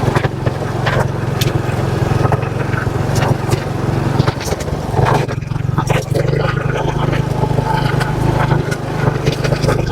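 Motorcycle engine running steadily while riding, with scattered clicks and knocks over it.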